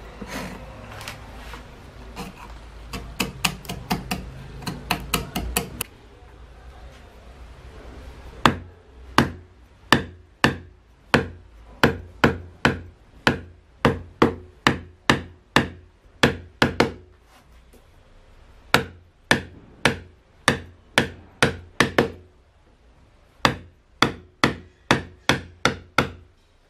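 Carving chisel paring cedar by hand with a scraping sound, then a run of sharp mallet blows on the chisel about two a second, with two short pauses, as it cuts into the relief lettering.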